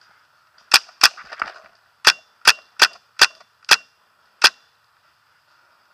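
Paintball marker firing about eight sharp single shots at uneven intervals, with a few fainter pops among the first ones; the firing stops a little past the middle.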